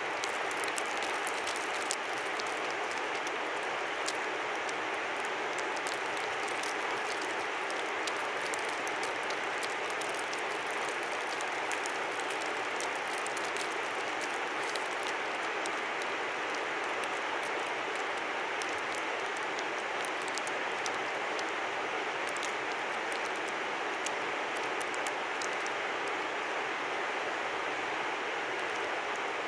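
Steady rushing of a river, an even, unbroken flow of water noise, with scattered faint high ticks above it.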